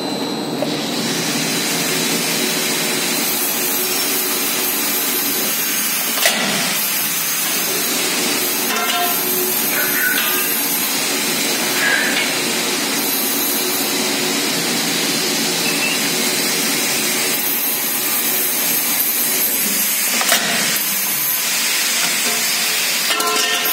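E-rickshaw rim roll-forming machine running with a loud, steady whirring hiss, broken by a couple of sharp metallic knocks.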